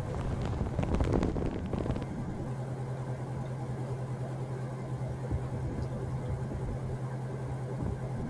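Gas roofing torch burning with a steady low rumble, swelling to a louder rush about a second in, while bitumen roofing felt is heated.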